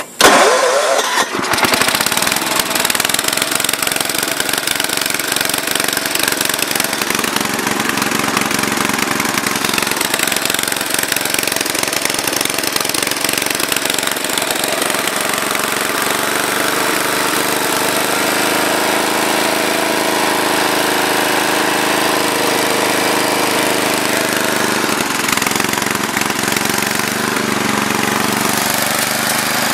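Ariens rear-engine riding mower's 8 hp Tecumseh single-cylinder engine starting up: it fires right at the start, settles within about two seconds and then runs steadily.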